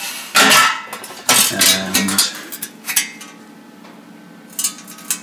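A welded sheet-steel door pocket from a classic Mini clanking and scraping as it is handled on a concrete floor. There are a few sharp knocks with a brief metallic ring in the first half, and lighter knocks near the end.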